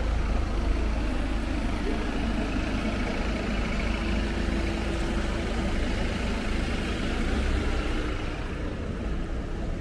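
Steady low rumble of a vehicle engine running close by, over general city street noise.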